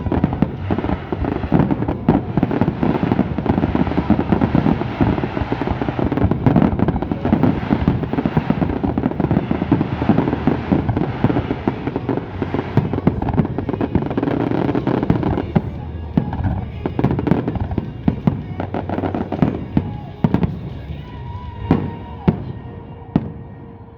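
Fireworks barrage: a dense, continuous run of bangs and crackling that thins out about two-thirds of the way in, leaving a few separate bangs near the end, with music underneath.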